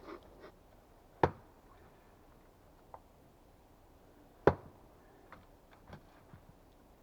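Two sharp knocks about three seconds apart, with a few lighter taps and clicks around them.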